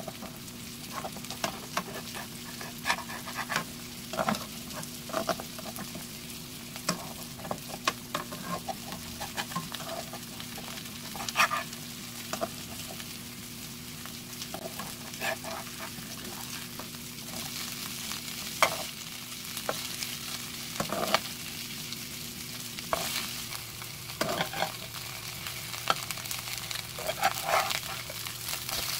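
Corn kernels sizzling in oil in a wok, with a metal spatula tapping and scraping against the pan again and again. A steady low hum underneath stops about three-quarters of the way through.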